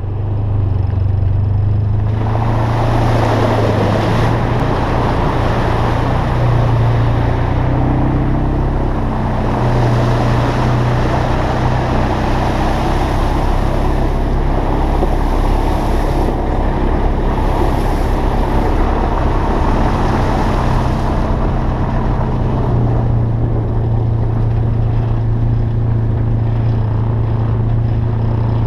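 Engine of a handlebar-steered off-road vehicle running steadily as it rides a rough gravel track, its low hum shifting slightly in pitch now and then, under a continuous rushing noise of wind and travel.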